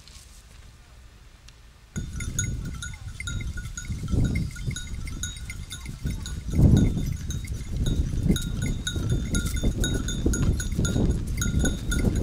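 Metal bells jingling over and over, starting suddenly about two seconds in, the kind worn by horses or grazing livestock. Under them is a low, gusty rumble.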